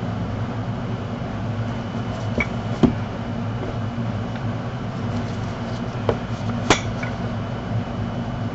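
Painted tiles and small plastic cups set down on a table, giving a few light clicks and knocks about two and a half and six and a half seconds in, over a steady mechanical hum.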